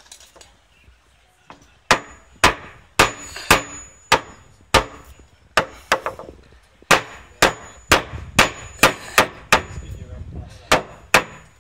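A spotted gum hardwood rafter being knocked down into its checked joint over the beam. About two seconds in, sharp blows on the timber begin and go on unevenly, roughly two a second, about sixteen in all, as the rafter seats without fixings.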